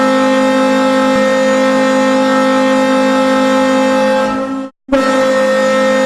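Hockey goal horn sounding a loud, steady low chord. It fades and cuts off for a moment about four and a half seconds in, then blasts again.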